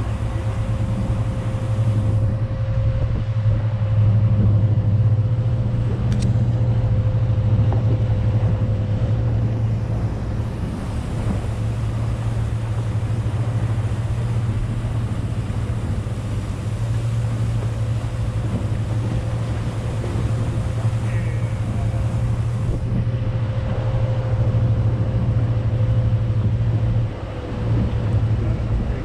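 A steady engine drone on a boat at sea, a low hum with a thin steady whine above it, running without a break.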